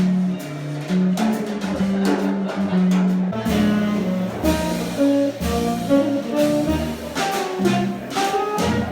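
Instrumental music: a melody over percussion, with a deeper bass part joining about three and a half seconds in.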